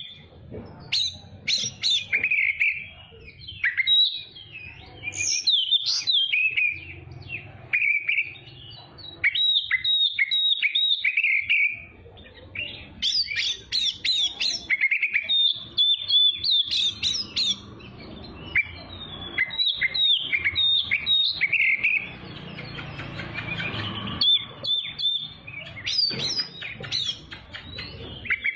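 Oriental magpie-robin (kacer) singing a fast, varied song of whistled and chattering phrases with brief pauses between runs.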